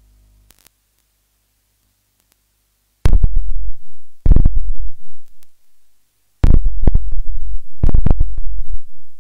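Electronic music sting: after about three seconds of near silence, two pairs of loud, bass-heavy hits with rapid stuttering chops, each dying away.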